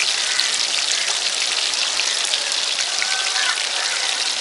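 Masala-coated fish pieces deep-frying in a black iron kadai of hot oil, sizzling and crackling steadily.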